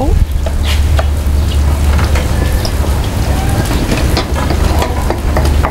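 Pandan rice-flour batter (bánh tai yến) sizzling as it deep-fries in a small pan of hot oil, a dense crackle with scattered pops, over a steady low rumble.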